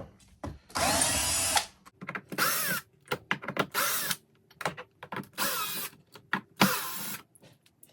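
Power drill-driver running in about five short bursts, its motor pitch rising and falling, as it backs the screws out of a casement window crank operator.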